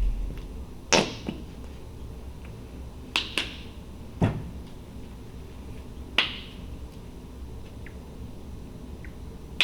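Plastic paint bottles being handled on a table: about six sharp clicks and taps at uneven intervals, one of them a duller knock about four seconds in.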